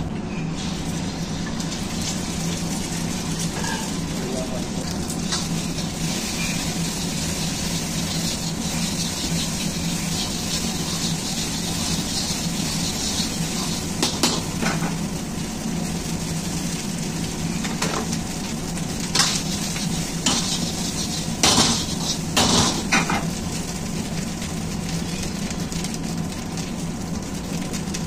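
Hot oil and eggs sizzling in a steel wok while a metal ladle stirs and scrapes. Sharp clanks of the ladle against the wok come about halfway through and in a cluster a few seconds later, over a steady low hum.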